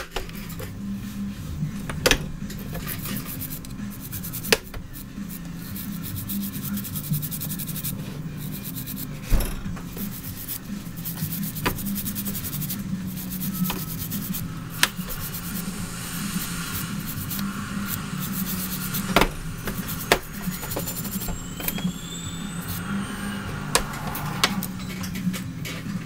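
Small hand tools scraping and rubbing during close-up electronics repair work, with scattered sharp clicks.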